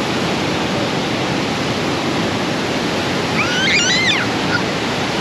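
Steady rush of a waterfall and mountain stream cascading over rocks, with a short high gliding sound about three and a half seconds in.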